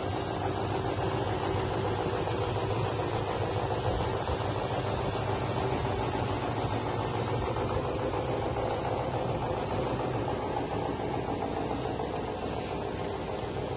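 Drum-type poultry plucking machine running steadily, a continuous mechanical hum.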